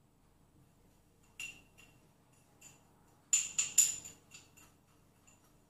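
A metal spoon clinking against a small ceramic bowl as cinnamon is stirred into sugar: a few light ringing clinks about a second and a half in, then a quick run of louder clinks a little past three seconds.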